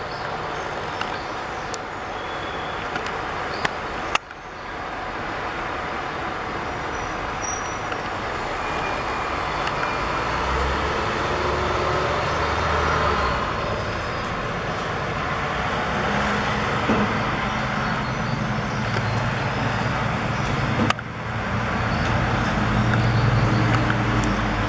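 Street traffic noise: the steady wash of passing cars, with a low engine hum swelling in the middle and again near the end. The sound changes abruptly twice, about four seconds in and near the end.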